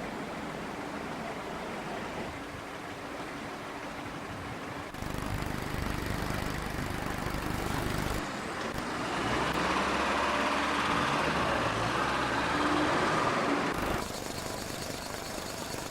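Heavy diesel engines running on the site, with an engine's pitch rising and falling near the middle as it works. The sound changes abruptly a few times, as if from separate cut-together shots.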